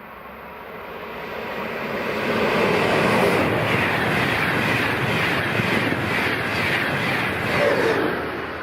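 Swiss express train passing at high speed on a high-speed line: the rush of wheels and air builds over the first two seconds, holds steady with a faint regular beat about twice a second, and eases off near the end.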